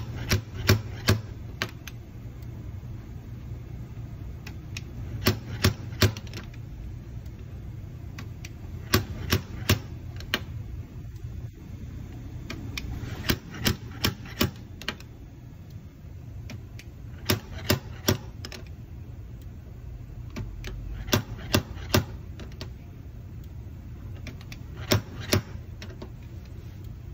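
Slide hammer on a Micro Spot dent-repair power gun pulling a dent out of a steel car panel: the weight knocks sharply against its stop in quick groups of two to four strikes, a group about every four seconds. A low steady hum runs underneath.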